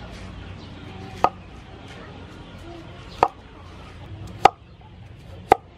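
Cleaver chopping pumpkin on a wooden cutting board: four sharp knocks, a second or two apart.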